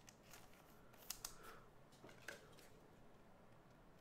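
Faint handling noise of baseball cards in plastic sleeves and a rigid holder being flipped through by hand: soft rustles and a few small clicks, the sharpest about a second in and a little after two seconds.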